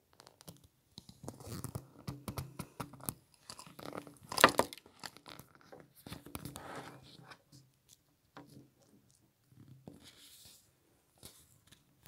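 Irregular rustling and crackling with scattered clicks, typical of a phone being handled and brushed against a curtain or window. The loudest is one sharp click about four and a half seconds in, and it grows sparser in the second half.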